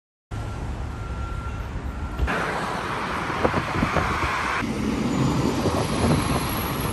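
Vehicle noise: a steady low rumble cutting in just after the start, with a louder rushing sound for about two seconds in the middle.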